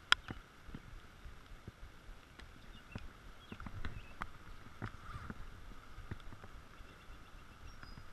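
Steady hiss of rain falling on the lake, with scattered sharp taps throughout, the loudest just at the start.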